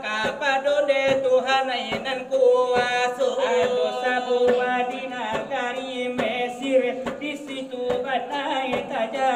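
Salawat dulang: male voices chanting a devotional melody over a steady rhythm of hands striking brass trays (dulang), about two beats a second.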